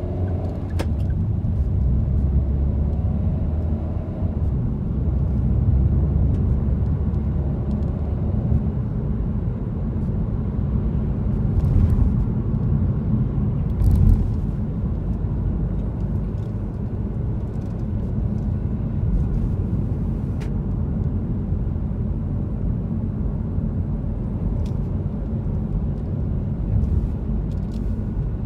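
A moving car's steady low road and engine rumble, with a few faint clicks and a short thump about halfway through.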